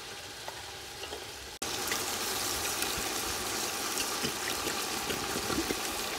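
Pot of curry simmering, bubbling and crackling steadily. About a second and a half in it suddenly gets louder; before that it is quieter, with a few small clicks as a jar lid is twisted open.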